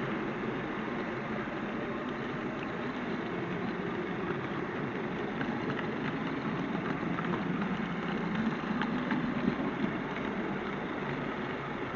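Model railway train running steadily along the track, a continuous rumble of wheels and motor heard close up from on board the train, with faint clicks from the rail joints.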